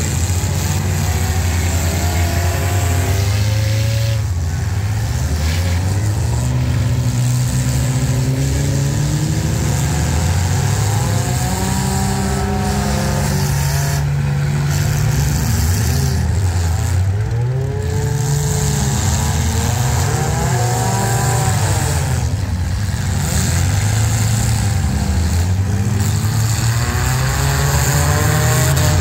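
Several compact demolition-derby cars' engines running and revving together, their pitch rising and falling again and again.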